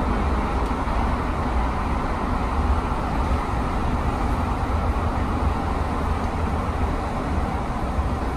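Light rail train running through a subway tunnel, heard from inside the front cab: a steady low rumble with an even running noise over it.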